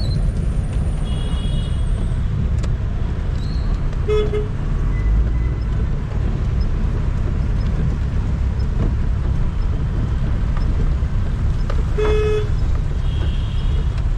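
Steady low rumble of a vehicle driving in road traffic. A vehicle horn honks briefly about four seconds in and again near the end, with a couple of fainter high-pitched toots.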